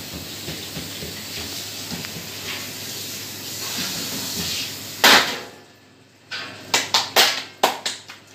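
A steady hiss for about five seconds, ending in a loud rush. Then a quick run of sharp slaps as roti dough is patted and flattened between the palms.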